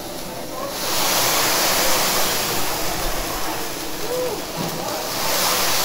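Hot teppanyaki griddle sizzling in a dense hiss as it steams and flares up in flames. The hiss starts about a second in, eases a little, then swells again near the end.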